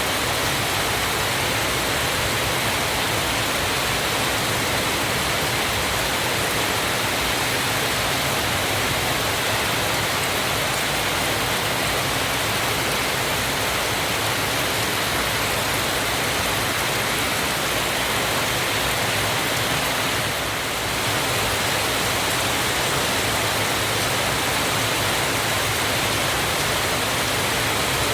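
Waterfall rushing in a steady, even roar of falling water, with a brief slight dip about twenty seconds in.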